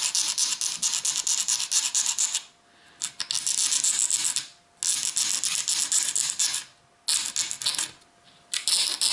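Small file rasping back and forth on the plastic interior part of a model railway coach in rapid strokes, in several bouts with short pauses, smoothing a roughly broken-out edge straight.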